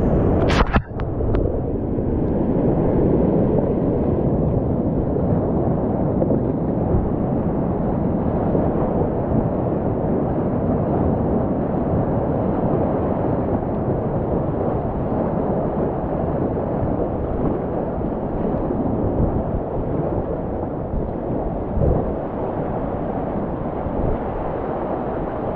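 Whitewater rapids rushing steadily around a kayak, a deep, dense water noise heard close up. About a second in the sound briefly drops out with a couple of sharp clicks.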